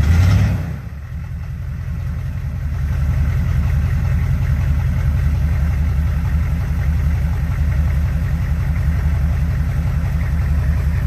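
Off-road 4x4's engine running steadily with a low, even pulse, picking up a little about two to three seconds in, after a brief louder noise at the very start.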